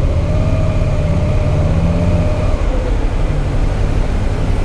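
Motorcycle engine running with a steady low rumble; a steady whine sits over it and fades out about two and a half seconds in.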